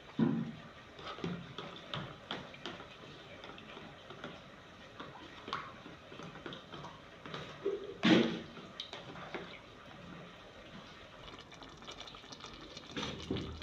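Corn flour and water being mixed by hand in a plastic tub for a slurry: soft wet stirring and dripping sounds with scattered light clicks, and one louder knock about eight seconds in.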